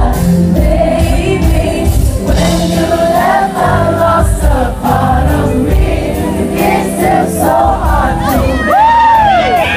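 Live concert sound: a woman singing with band accompaniment, the crowd audible, her voice swooping up and down in a quick run about nine seconds in.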